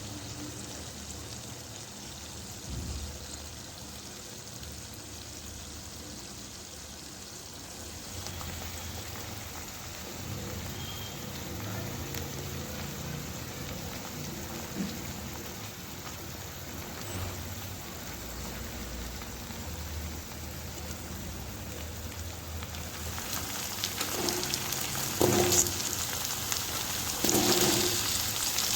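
Food frying in a pan, a steady sizzle that grows louder and brighter near the end, when a few knocks and scrapes of a spatula stirring the pan come in.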